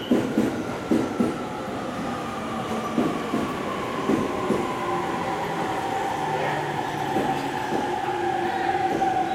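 Train wheels of Yokohama Municipal Subway 4000-series cars, towed in a freight consist, rolling away on a curve. A long wheel squeal slowly falls in pitch, and there are several knocks over rail joints in the first few seconds.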